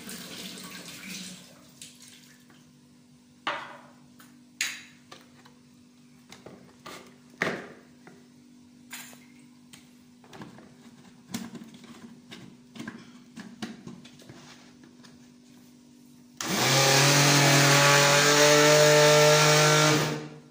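Electric countertop blender motor switched on, running steadily at high speed for about four seconds as it purées chopped leafy greens, then cutting off. Before it, a few light clicks and knocks.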